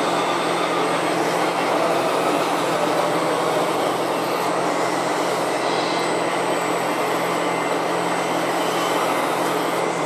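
Radio-controlled Liebherr wheel loader and RC low-loader truck running, a steady mechanical drone with a constant low hum as the loader drives along the trailer deck.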